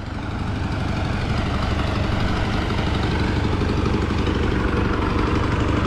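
Engine of a trailer-mounted road-works machine running steadily, very loud and close, with a deep low hum; it swells over about the first second and then holds level.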